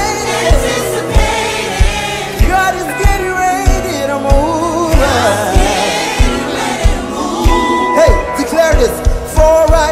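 Live gospel praise-and-worship band: lead and backing singers over a drum kit keeping a steady beat and an electric bass guitar.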